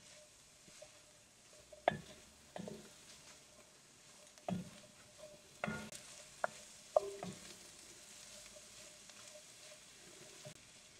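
A utensil stirring food in an enameled cast iron pot, with several irregular knocks and scrapes against the pot over a faint sizzle.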